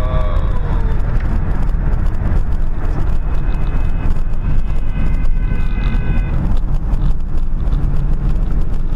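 Steady road and engine noise inside a car cruising at motorway speed, with a few faint held tones between about three and six seconds in.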